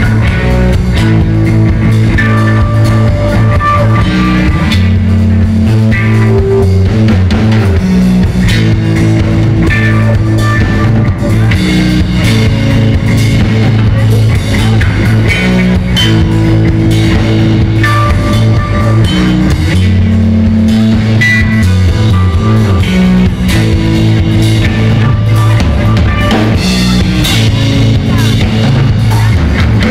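A rock band playing live and loud: electric guitars over a drum kit, with steady low bass notes and no singing.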